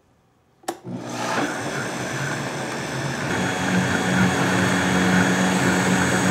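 Vitamix 5200 blender switched on with a click under a second in, its motor spinning up and then running steadily as it purees hot acorn squash soup. It gets louder, with a higher whine, about halfway through.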